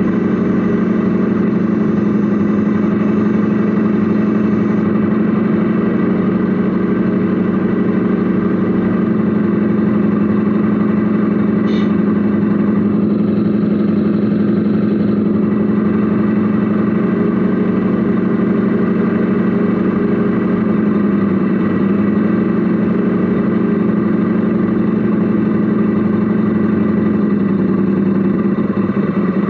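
Radio-controlled Mercedes Actros SLT model truck, heard from inside its cab: a loud, steady engine-like hum with many overtones that dips briefly a little past the middle.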